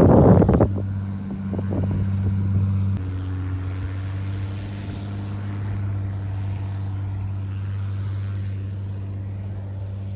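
Cessna A188B AgTruck's piston engine and propeller running steadily at a distance, a low even hum. It opens with a loud rushing noise that cuts off abruptly under a second in.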